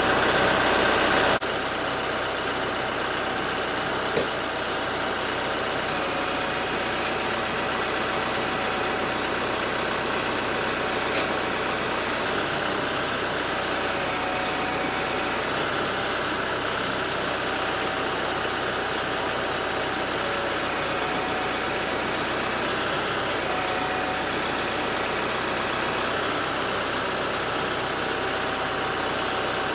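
Kubota MX-6000 tractor's diesel engine running steadily as it pulls on a chain to roll a log over. It drops a little in level just over a second in, then holds steady.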